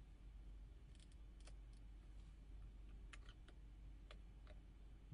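Faint, sparse small clicks over near-silent room tone: a dental tool picking at and opening the small flex-cable connector on a phone's circuit board.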